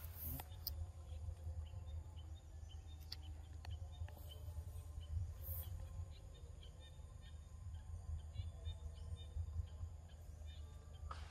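Quiet forest ambience: a steady low rumble with faint, scattered bird chirps and a few soft clicks.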